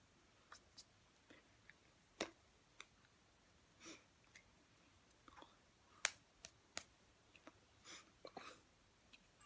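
Near silence with faint, sharp clicks and taps scattered through it, the loudest about two and six seconds in: hands striking and brushing each other and mouth movements of a person signing in sign language.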